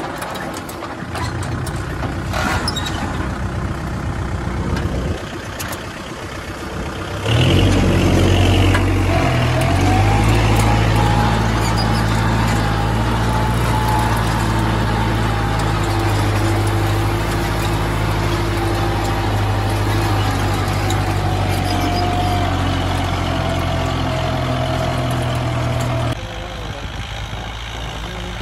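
Kubota MU4501 tractor's four-cylinder diesel engine running steadily under load while pulling a ridging implement through the soil, with a thin whine above the engine note. It gets louder about seven seconds in and a little quieter near the end.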